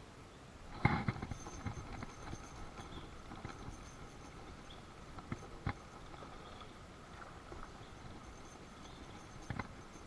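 Scattered knocks and taps on a kayak, the loudest cluster about a second in and another near the end, over faint steady high tones.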